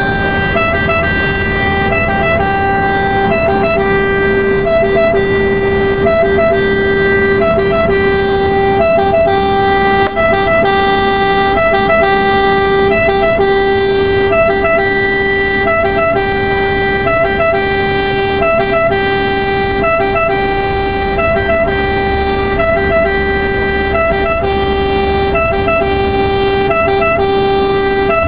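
Ambulance siren sounding continuously from the vehicle on an emergency run: a steady, loud pitched tone broken by short regular blips, over engine and road rumble.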